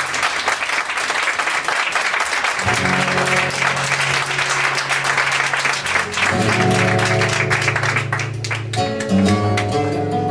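Audience applauding, with a flamenco acoustic guitar playing underneath; the applause dies away near the end and the guitar carries on alone.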